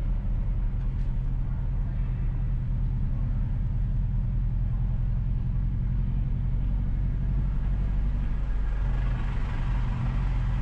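Steady low drone of a car's engine and tyres as it drives along a town street.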